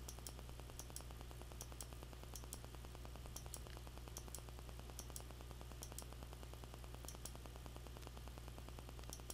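Faint computer mouse clicks, mostly a press-and-release pair at a time, repeating every half-second to a second as the satellite loop is stepped forward frame by frame, over a steady low electrical hum.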